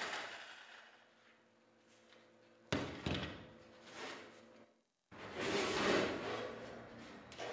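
A jigsaw cutting thin steel sheet winds down and stops right at the start. About a third of the way in comes a sudden clunk with a few smaller knocks on the steel sheet. After a short break, the thin steel sheet flexes and rattles as it is lifted and handled.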